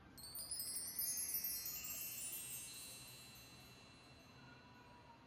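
A cascade of high metallic chimes struck in quick succession for about a second, then ringing on and slowly fading away.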